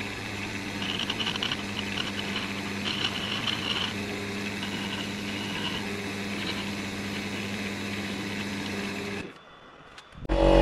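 Wood lathe running with a steady hum while a hand rubs against the spinning crayon vase, adding an uneven rushing friction sound; the lathe stops about nine seconds in. Loud music starts near the end.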